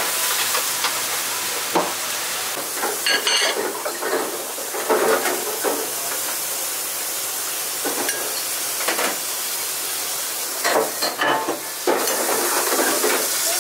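Busy restaurant kitchen: a steady sizzling hiss, with scattered knocks and clatters of metal utensils and dishes and a metallic clink about three seconds in.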